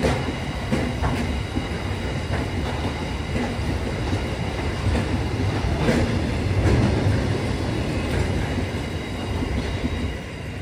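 Empty container flat wagons of a freight train rolling past, their wheels clacking over rail joints above a steady rumble. The sound eases off near the end as the last wagon clears.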